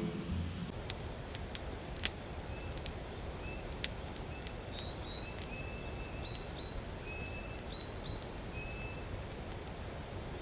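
Outdoor ambience with birds calling: short high chirps, several in quick pairs. Occasional sharp pops and crackles of a wood campfire come through a steady low background hiss.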